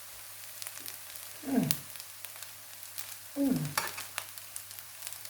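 Rice frying in a pot with a steady sizzle and a few sharp ticks. Twice, about a second and a half in and again near three and a half seconds, there is a short hum from the cook that falls in pitch, an appreciative "mm" as she tastes the rice.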